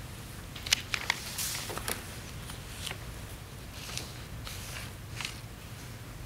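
Sheets of paper being handled and leafed through, a scattering of short crisp rustles and flicks, most in the first two seconds, over faint room hum.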